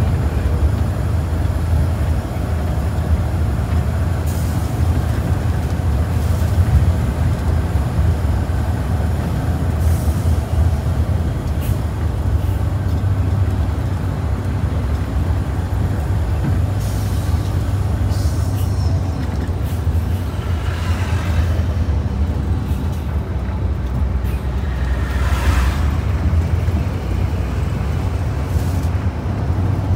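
Mercedes-Benz OH 1526 bus's diesel engine running steadily under way, with short hisses from the air brakes now and then.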